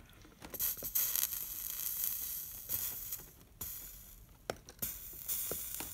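Soldering iron melting solder wire into a stained-glass seam, the flux sizzling and crackling in irregular spurts with short pauses as the solder is fed.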